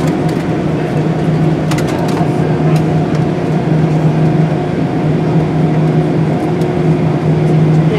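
Airliner jet engines running with a steady, even hum, heard inside the passenger cabin as the plane rolls along the runway, with a few light clicks or rattles about two seconds in.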